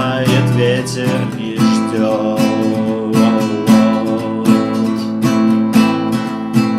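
Acoustic guitar strummed in a steady rhythm, the closing bars of the song.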